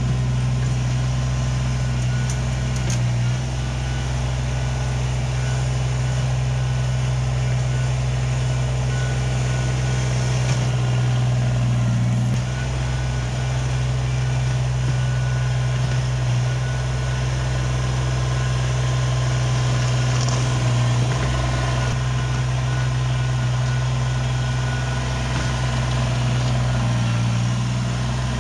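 Diesel engine of a compact loader or tractor running steadily, a constant low drone that dips briefly a few times.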